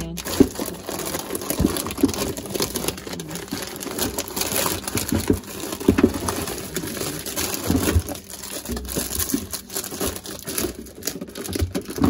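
Plastic food packages crinkling and rustling as they are shuffled and restacked on a refrigerator shelf, with light knocks of packs against the shelf and each other throughout.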